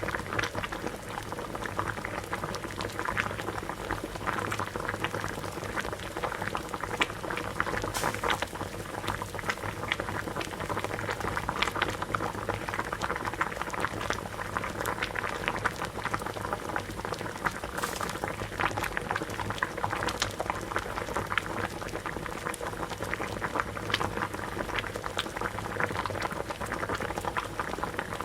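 Water at a rolling boil, a steady dense bubbling of many small pops and bursts with a low steady hum beneath.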